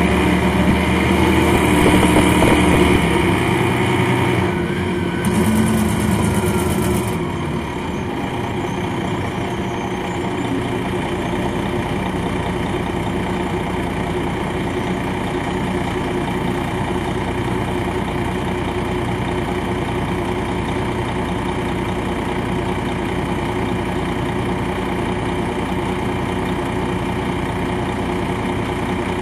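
Detroit Diesel Series 60 engine of an MCI D4000 coach, heard from inside the bus. It runs louder for the first several seconds, with a brief hiss about five seconds in, then settles to a steady idle about seven seconds in.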